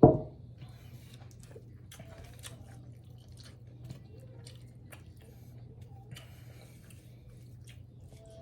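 A heavy thump right at the start, then close-miked eating sounds: a person chewing with scattered wet mouth clicks and smacks, over a steady low hum.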